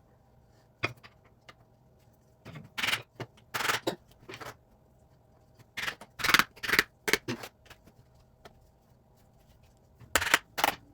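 Wooden parts of a plant stand being handled during assembly: short knocks and scrapes in several brief clusters with pauses between.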